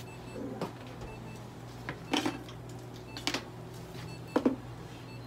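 A few short clicks, knocks and rustles from handling a cat and small medical items on a steel exam table, the loudest about two seconds in and again near the end, over a steady low hum.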